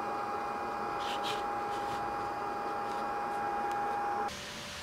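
Steady mechanical hum with one constant tone over a hiss, cutting off sharply near the end; a couple of faint light rustles about a second in.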